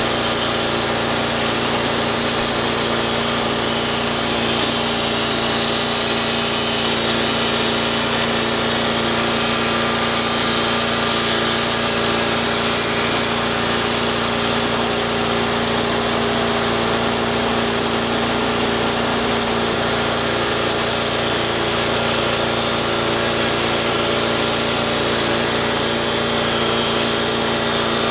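Portable bandsaw mill running steadily, its band blade cutting lengthwise through a mesquite log as the sawhead travels along it.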